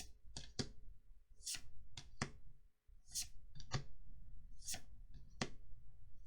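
Trading cards being flicked through one by one: each card gives a short papery swish as it slides off the stack, then a light snap as it is set down, about once a second.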